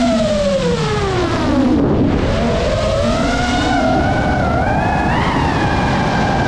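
Geprc Mark 5 FPV quadcopter's brushless motors and propellers whining. The pitch falls over the first two seconds as the throttle drops into a dive, then rises and wavers as the motors power up again, peaking about five seconds in.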